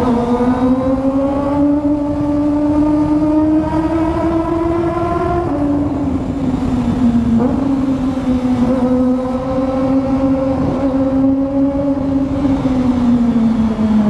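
Kawasaki ZX-25R's 250 cc inline-four engine pulling under throttle, its pitch climbing steadily and then dropping abruptly about five and a half seconds in. It holds a fairly even note before falling away near the end, over a constant rush of wind and road noise on the helmet microphone.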